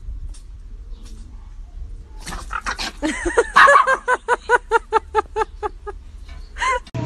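Dog yelping in rough play: a fast run of high yelps, about four a second, starting about two seconds in, with one last yelp near the end.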